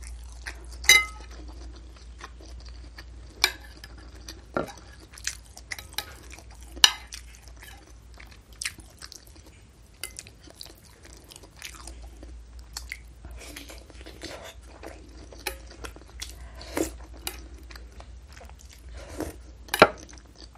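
Close-miked chewing of beef meatballs and noodles, with wet mouth clicks, and a metal spoon clinking and scraping in the soup bowl. Sharp clicks come irregularly, the loudest about a second in and near the end.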